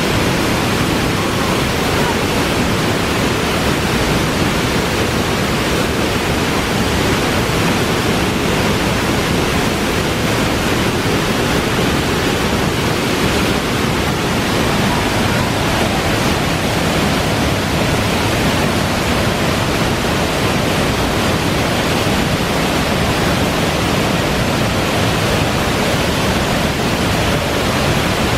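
Waterfall crashing steadily into its pool, a loud, even rush of falling water.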